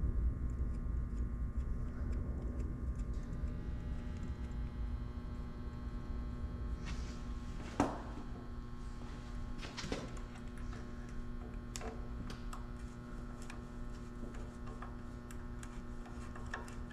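Light clicks and taps of hand work on small engine parts over a steady electrical hum: about a dozen scattered clicks from about seven seconds in, the sharpest near eight seconds.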